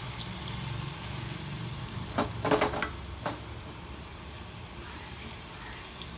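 Battered spine gourd bajjis sizzling in hot oil, a steady hiss. A few sharp knocks come about two to three seconds in.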